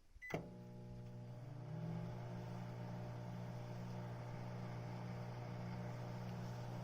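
Yamazen microwave oven, powered from a 2000 W inverter, starting with a short beep and a click, then running with a steady electrical hum that grows louder about two seconds in.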